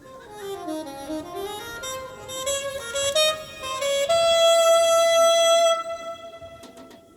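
A school band playing: a single melodic line that moves down and back up, then settles on one long held note that fades away near the end.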